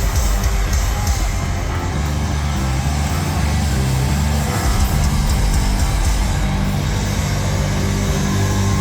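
Live hard rock band playing at concert volume, with distorted guitars and heavy low bass notes that change pitch in steps from about two seconds in.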